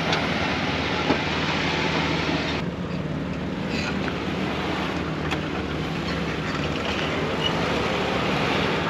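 Jeep engine running at low speed as it crawls over slickrock, a steady low hum under a steady rushing noise.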